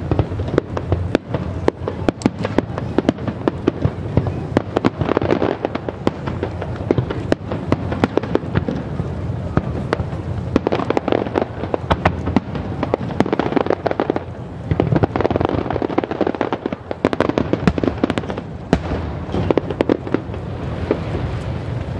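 Aerial fireworks going off in a continuous barrage: many sharp bangs and crackles every second over a steady low rumble, thinning briefly twice in the later part.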